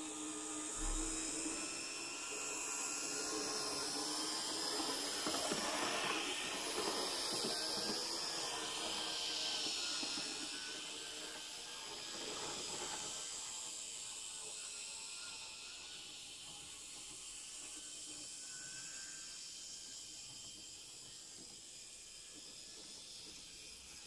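Z-scale model train running: the tiny electric motor's high whirring and the wheels on the rails grow louder as it passes close, then fade away over the second half.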